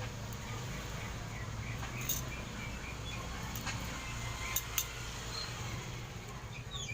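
A steady low hum with a few sharp clicks, the loudest two close together near the end, typical of a utensil knocking a pot while the sticky bird-lime mixture is stirred as it cooks. Faint short bird chirps sound early on.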